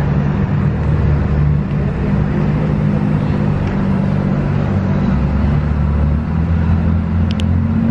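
Steady low drone of a cruise ship underway, several low hum tones under an even rushing noise, with two faint clicks near the end.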